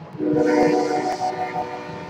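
Empty coal hopper train rolling past. About a quarter second in, a sudden loud sound of several steady tones with a high hiss starts, then fades over the next second or so.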